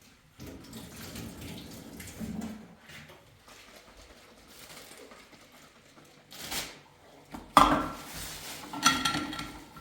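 Dishes and cutlery clattering as they are handled, with two sharp louder clanks near the end.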